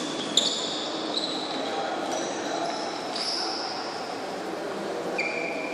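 Badminton players' shoes squeaking on the court floor during a rally, several short high squeaks, with a sharp racket hit on the shuttlecock about half a second in. Voices murmur in the hall behind.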